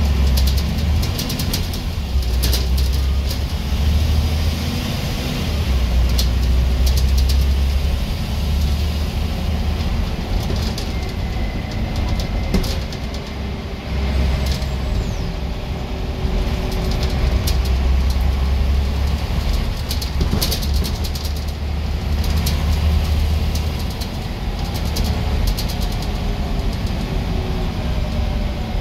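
Scania N94UB bus's diesel engine heard from inside the saloon, working hard: its low drone surges and eases off several times as the bus pulls away and slows, with a whine that rises and falls in pitch. Short rattles from the bus body and fittings come through repeatedly.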